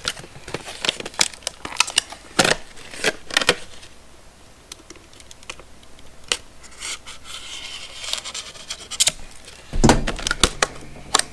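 A knife cutting and prying at product packaging, with scattered sharp clicks, scrapes and crinkles of the packaging being worked loose, and a louder thump near the end.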